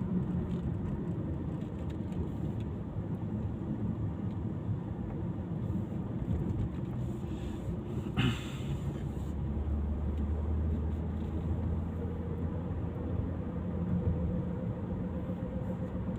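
A car on the move: steady low road and engine rumble. There is a short sharp sound about eight seconds in, and a deeper hum for a few seconds after it.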